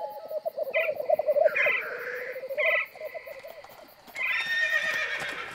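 An animal call with a rapidly quavering pitch, then a higher call starting about four seconds in.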